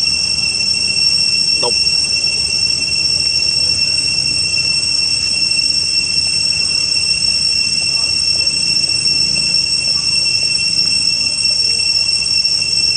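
Cicada chorus: a loud, steady, shrill drone of several high pitches held without a break.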